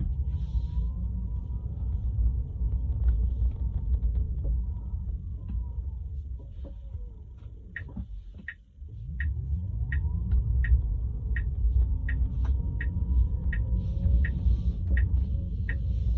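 Tesla Model 3 moving at 7–8 mph, heard from the cabin: a heavy low rumble and repeated thumping as the accelerator is pressed and released, with the electric motor's whine rising and falling. The rumble drops away briefly a little past halfway, then returns, and a regular sharp ticking about twice a second runs through the second half.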